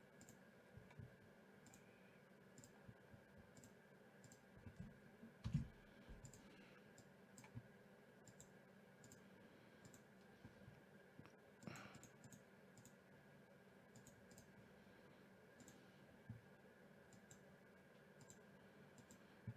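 Faint, scattered clicks from a computer mouse and keyboard, with a couple of soft thumps; otherwise near silence.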